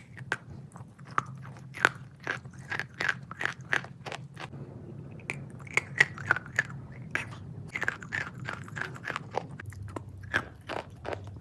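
Close-miked crunching and chewing of a wet crunchy substance: crisp crunches come several a second, with a brief lull about four and a half seconds in.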